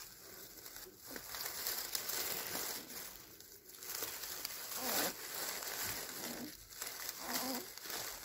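Shredded newspaper bedding crinkling and rustling around a newborn Siberian husky puppy as it shifts in the paper, with louder swells about a second in, around five seconds, and near the end.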